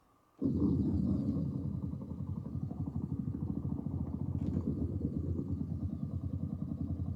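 Yamaha MODX6 synthesizer sound-effect patch: a low, engine-like rumble with a fast flutter. It starts abruptly about half a second in.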